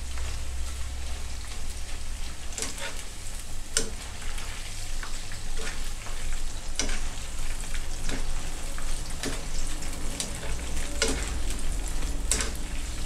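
Batter-coated water spinach deep-frying in palm oil, with a steady sizzle, while a wire spider strainer is worked through the strands to loosen them. The wire taps and scrapes against the pan about once a second.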